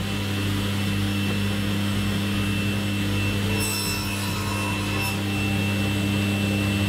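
Table saw running, its blade ripping a taper along a pine board fed on a homemade taper jig: a steady motor hum under the hiss of the cut, which sharpens for about a second midway.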